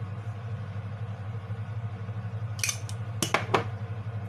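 Sugar being spooned from a plastic jar into a small ceramic bowl: a short scraping rustle, then a few sharp clicks of the spoon and jar near the end, over a steady low hum.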